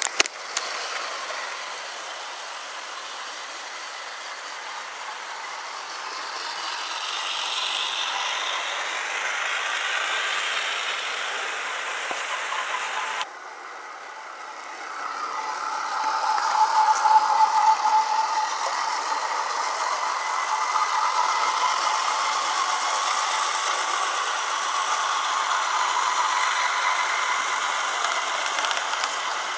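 O gauge model trains running on garden railway track: a steady metallic rattle of wheels over the rails, with two sharp clicks at the very start. About halfway it drops away abruptly, then builds up louder as a train passes close, with a faint steady whine.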